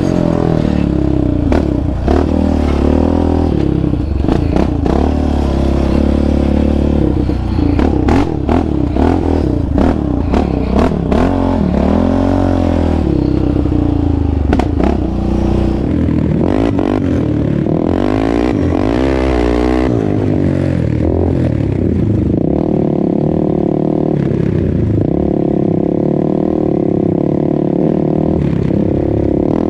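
Single-cylinder four-stroke sport ATV engine revving up and down as the quad rides a rough trail. Frequent knocks and rattles from the machine bouncing over the ground fill roughly the first half, and the engine runs more steadily after that.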